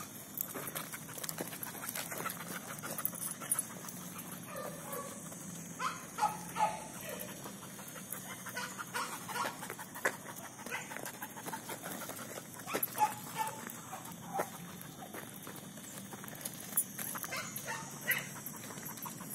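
Dogs giving short whines now and then, while steps and paws scuff on dry gravelly ground.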